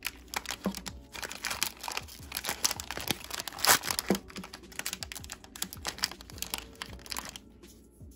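Foil wrapper of a chocolate-coated ice cream bar crinkling and tearing as it is opened by hand and the bar is pulled out, in a run of irregular crackles that dies away near the end.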